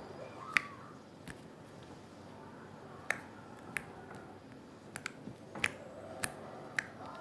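Glitter slime being squeezed and worked by hand for ASMR, giving sharp clicking pops of trapped air at an uneven pace, about nine over a few seconds.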